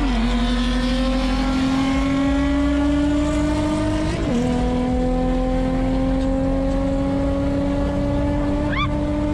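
Infiniti G35's V6 accelerating through an aftermarket Tomei exhaust, heard from inside the cabin. The revs climb steadily, fall with an upshift right at the start and again about four seconds in, then climb again.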